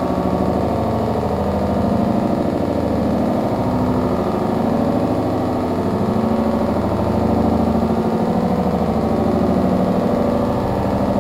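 Electronic bio-noise from a yeast culture sensed through a theremin sensor's antenna: a dense, rough low drone with a fast flutter and slowly shifting tones, following changes in the conductance of the fermenting yeast.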